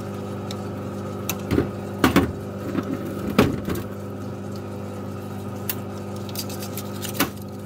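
Sharp knocks and clicks of metal parts being handled and worked by hand: a few about two seconds in, a pair about three and a half seconds in, and one near the end. Under them runs a steady machine hum.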